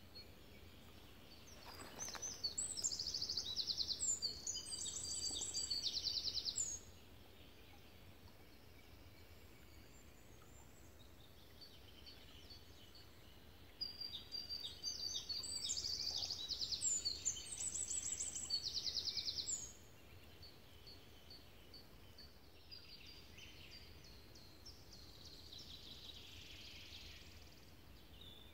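A small songbird singing two loud, high-pitched songs made of rapid trills, each about five seconds long and about twelve seconds apart. Fainter bird calls come between them and near the end.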